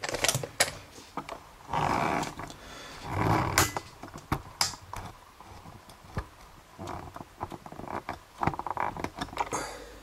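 Handling noise from a brass lock cylinder being taken out of a vise and set down on a marble worktop: scattered clicks and knocks of metal on metal and stone. There are two louder, longer noises about two and three and a half seconds in.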